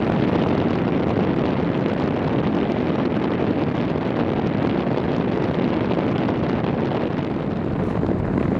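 Steady rushing noise of a car driving along a snow-covered road, tyre and wind noise together.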